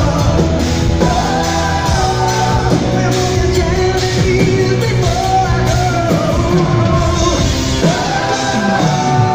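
Live rock band playing, with sung vocals over electric guitars and drums, taken straight from the mixing-desk feed.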